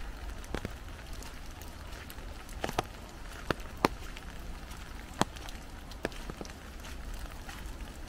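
Raindrops tapping on an umbrella overhead: irregular sharp taps, roughly one a second, over a steady soft patter of light rain and a low rumble.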